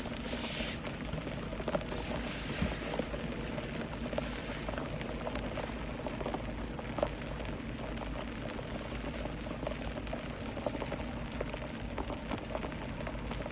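Steady rain falling, a dense patter of many small drops, over a low steady rumble.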